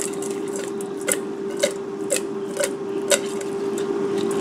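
Oiled raw shrimp sliding and slapping around a stainless steel mixing bowl as the bowl is swirled and shaken to coat them, about two soft scrapes a second. A steady hum runs underneath.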